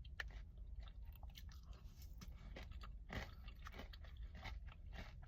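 Close-up chewing of a mouthful of Greek yogurt bowl with granola: soft, irregular crunching and mouth sounds.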